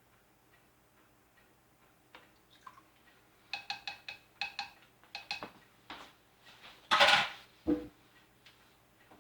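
Small metal kitchen utensils clinking together in a quick run of light ringing clicks, then a louder brief clatter and a dull knock near the end.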